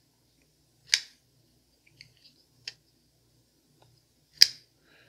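Sharp clicks from a Petrified Fish Flavorist S liner-lock folding knife being handled: a loud click about a second in, a faint one midway and the loudest near the end.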